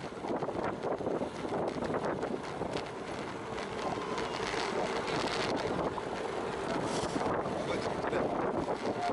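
Wind buffeting the microphone of a camera mounted on a moving bicycle, a steady gusty rush with road noise from the ride underneath.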